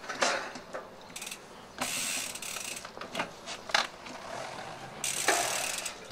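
Mountain bike rear hub ratcheting as the bike rolls and coasts, in two buzzing runs of about a second each, with scattered clicks and knocks from the bike in between.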